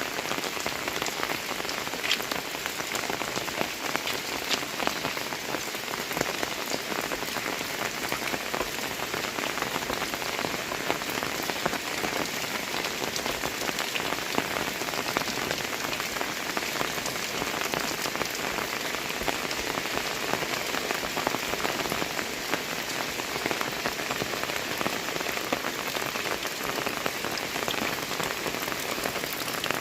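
Heavy rain falling steadily, a dense hiss with many distinct close drop hits.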